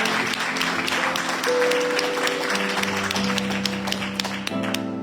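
A congregation applauding over instrumental music with long held chords. The clapping thins out near the end while the chords carry on.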